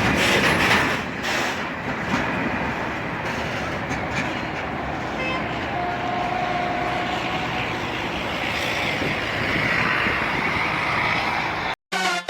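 Loaded container freight train rolling past, a steady rumble of wheels on rail with a brief faint tone about six seconds in. The sound cuts off abruptly shortly before the end.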